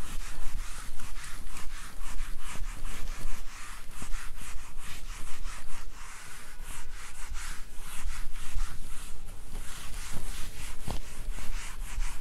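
Whiteboard duster rubbed back and forth across a whiteboard, erasing marker writing in a quick run of scrubbing strokes, several a second.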